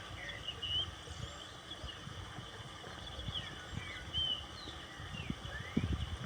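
Several wild birds chirping, with many short rising and falling notes, over a steady outdoor background. A few low thumps come in near the end.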